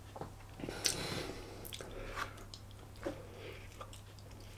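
Chewing and biting into a chilli dog in a soft bread roll: soft, wet mouth sounds and small clicks, over a faint low steady hum.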